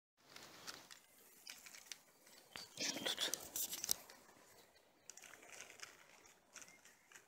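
Irregular rustling and crinkling with scattered sharp clicks, loudest for about a second around three seconds in. No trimmer engine is running.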